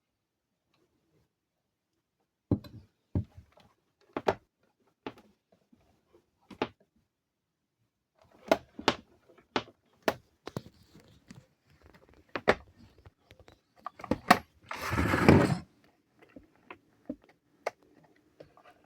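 Scattered knocks and clicks of hard objects being handled, coming thicker about halfway through, with one loud, noisy scrape or rustle lasting about a second near the three-quarter mark.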